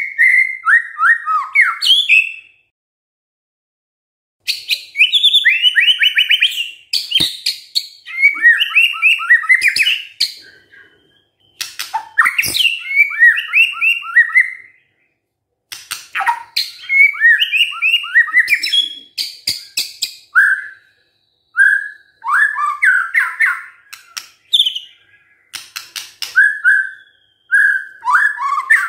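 White-rumped shama (murai batu) singing in bursts of fast, varied whistled phrases, trills and sharp clicks, with short pauses between the bursts.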